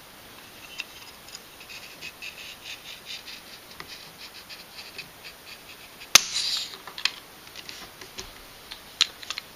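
Small ticking and handling clicks from a mechanical trigger pull gauge drawn against a Mosin Nagant's trigger. About six seconds in the trigger breaks with one sharp snap as the striker falls on the dry rifle, at a heavy pull of about 6 pounds. A few lighter clicks follow near the end.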